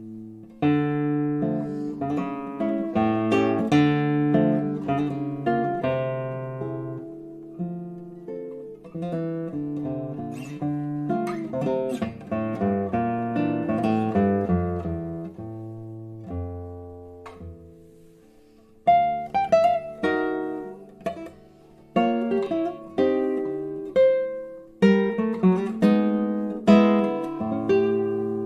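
Solo classical guitar playing plucked chords and melody. About two-thirds through, the music fades to a soft held note, then resumes with sharp, accented plucked chords.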